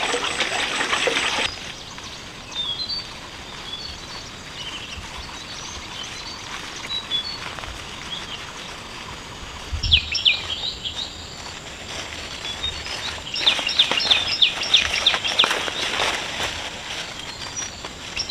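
Water running for about the first second and a half, then stopping abruptly. After that, birds chirping, with bursts of rapid chirps about halfway through and again near the end.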